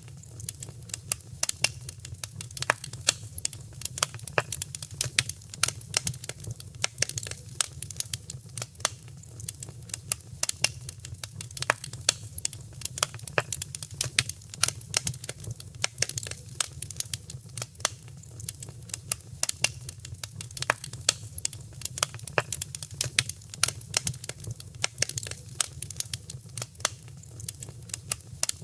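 Fireplace fire crackling: dense, irregular pops and snaps over a steady low rumble.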